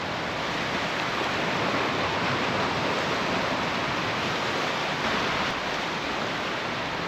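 Steady wash of surf breaking on a sand beach, swelling slightly in the middle and easing off again.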